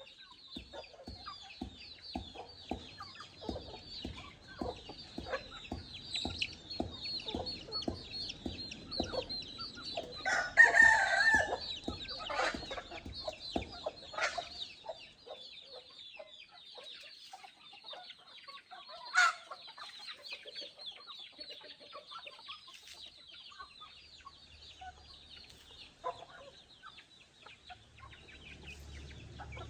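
Backyard chickens clucking, with a loud call about a third of the way in and a shorter loud call about two-thirds through.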